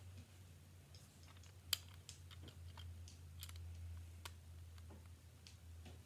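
Plastic LEGO bricks clicking and clattering as pieces are handled and pressed together: scattered faint clicks, with one sharper click nearly two seconds in, over a low steady hum.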